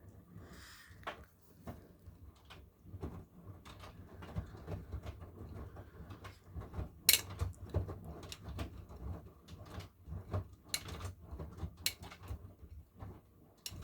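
Miele washing machine running: a low rumble with irregular clicks and knocks, and a few sharper clicks about seven, eleven and twelve seconds in and again near the end.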